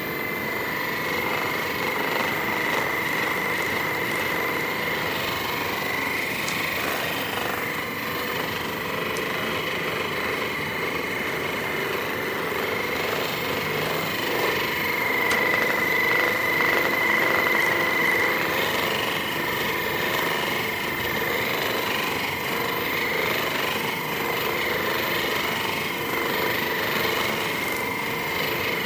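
Electric percussion massager running steadily: a motor whine over rapid continuous hammering, a little louder about halfway through.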